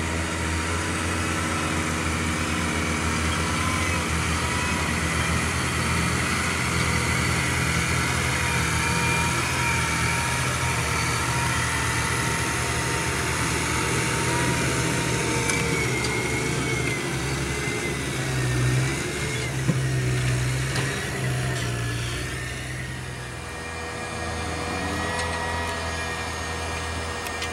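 Massey Ferguson 6465 Dyna-6 tractor's diesel engine running steadily under load while pulling a cultivator through the soil. It grows louder as the tractor passes close, then fades as it pulls away near the end.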